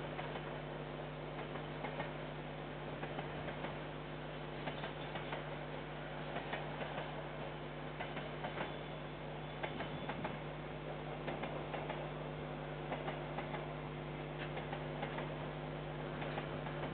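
Distant container freight train passing, wagon wheels clicking irregularly over the rails, over a steady electrical hum.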